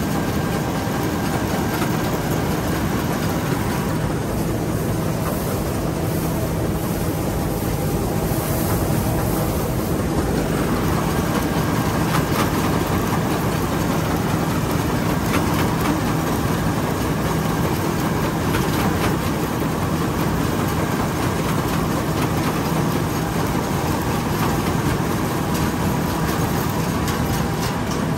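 Tracked rice combine harvester, a Somboon Pattana machine on a 12HL track undercarriage, running steadily: a constant engine-and-machinery drone with a steady low hum throughout.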